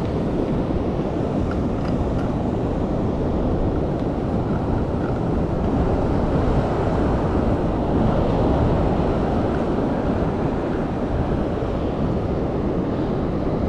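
Steady wind rumbling on the microphone over the wash of ocean surf.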